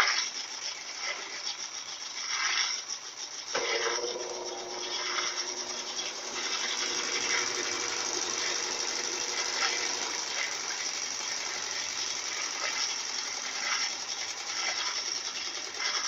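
Consul Maré CWL75 top-loading washing machine in its spin cycle, the tub spinning with a steady rushing whir. A steadier hum joins about three and a half seconds in.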